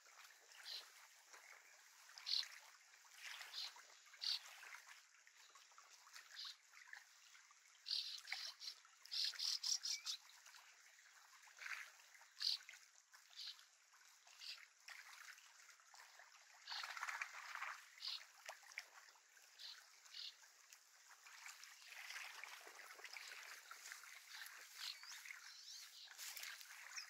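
Faint lakeshore ambience: small waves lapping at the shore, with scattered short high chirps and a softer rustling, rushing stretch toward the end.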